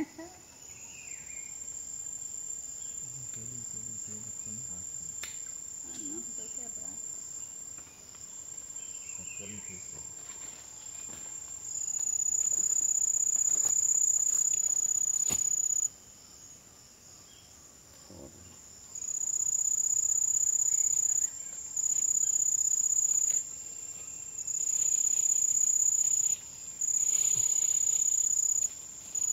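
Insects shrilling: a steady high-pitched trill, which about twelve seconds in starts coming in much louder stretches of one to four seconds that switch on and off abruptly.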